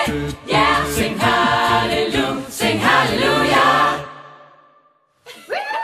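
Mixed men's and women's voices singing a cappella in harmony, like a choir; the singing stops about four seconds in and fades to near silence. A voice starts again just before the end.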